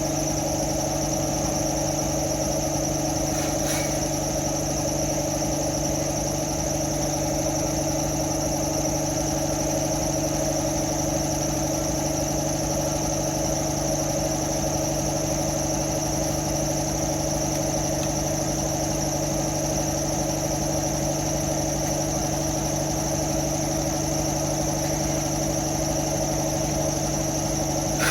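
A motor running steadily with a constant, unchanging hum.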